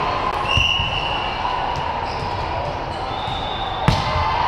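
A volleyball struck hard by a player's hand on a serve: one sharp smack near the end, over the steady din of a busy sports hall.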